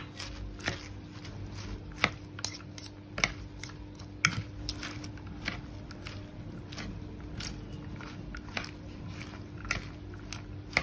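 Salad being tossed in a wooden bowl: crisp shredded lettuce and cabbage crunching and rustling, with irregular sharp clicks of the serving utensils against the bowl.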